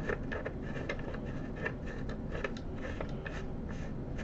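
Irregular light clicks and taps as a Bausch & Lomb StereoZoom 7 stereo microscope is handled and its adjusters are worked by hand.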